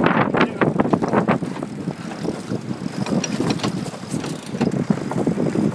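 Wind buffeting the microphone aboard a sailboat under way, with water rushing along the hull: a loud, irregular, gusty rushing.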